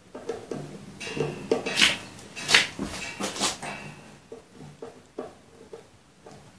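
Irregular clicks, light knocks and rustling of hands working on a wood chipper's sheet-metal hopper and its parts, with the sharpest clicks about two to three and a half seconds in.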